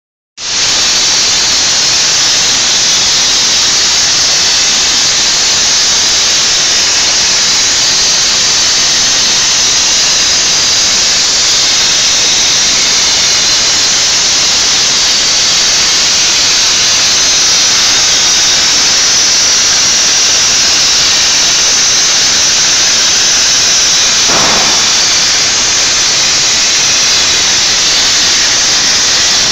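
A CNC profile-cutting torch cutting through 10 mm steel plate, making a loud, steady, high-pitched hiss.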